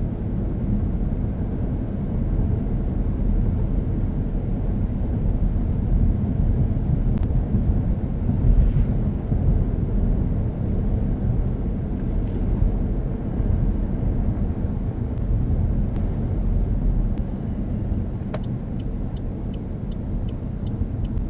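Inside the cabin of a 2012 Chevrolet Cruze being driven, the 1.4-litre turbocharged Ecotec four-cylinder and the tyres make a steady low rumble. Near the end the turn signal starts ticking, about three clicks a second.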